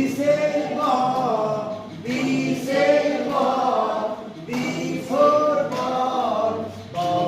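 Children's phonics song for the letters A and B, sung in short repeated phrases with brief breaks between them.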